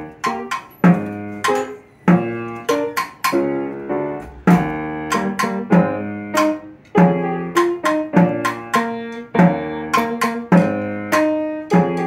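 Snare drum played in rhythm over a recorded musical accompaniment of pitched instruments. The sharp strokes and the melody notes come together about every half second.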